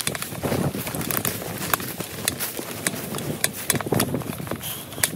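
Plastic bag of soaked corn groundbait handled in the hands: crinkling and rustling with irregular sharp clicks and knocks.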